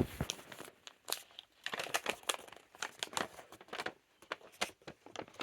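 Paper rustling and crinkling in irregular bursts as a folded note is handled and unfolded.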